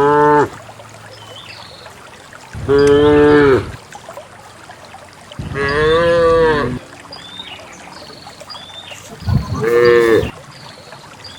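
Cattle mooing: the end of one call right at the start, then three long moos about three seconds apart, each lasting about a second.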